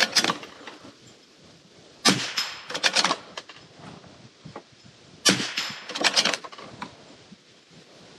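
Two rifle shots from a scoped precision rifle with a muzzle brake, about three seconds apart, fired at a moving steel target. Each shot is followed within a second by a quick run of sharp clacks.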